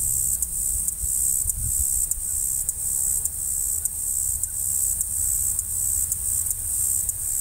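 Insects chirping in a high, evenly pulsing drone that repeats a few times a second, over a low rumble of wind on the microphone.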